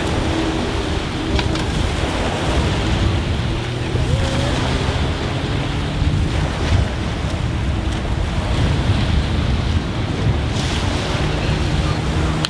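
Small waves breaking and washing up a beach, with wind buffeting the microphone. Under the surf runs a low, steady hum from the inflatable boat's motor.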